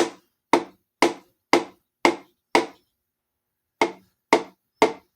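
Mallet taps driving a piston down through a strap ring compressor into a Jeep 4.0 cylinder bore, about two gentle, evenly spaced taps a second: six, a pause of about a second, then three more.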